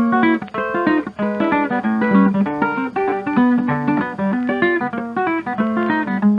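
Background music: a quick run of plucked-string notes over a moving bass line.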